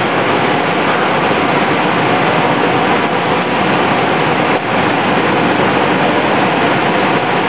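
Continuous conveyor fryer for vegetable fritters running: a loud, steady, even noise of frying oil and machinery, with a brief dip about four and a half seconds in.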